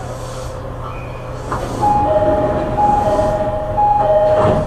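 Door chime of an E501-series electric train standing at a station: a two-note high-then-low chime sounds three times, over the car's steady low hum. A thump near the end marks the doors shutting.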